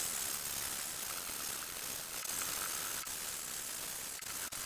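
Hand sanding with 80-grit sandpaper on a sanding block, rubbed back and forth over a strip of cured, layered fiberglass tape to flatten its top: a steady scratchy rasp.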